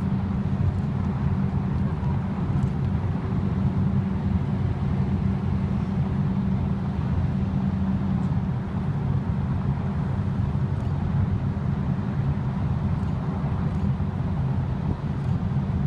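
Steady low vehicle rumble with a constant engine hum.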